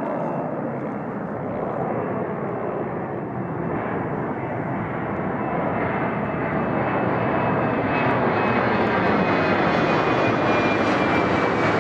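Embraer ERJ-190 jet airliner climbing out overhead after takeoff, its two CF34 turbofans at climb power: a broad jet roar that grows louder in the second half, with a faint fan whine slowly falling in pitch.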